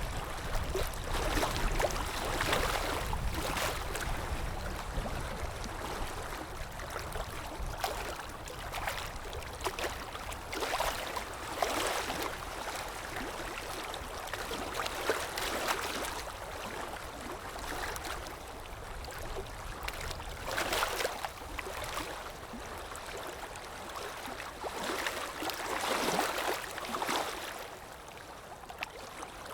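Water rushing continuously, with louder surges every few seconds.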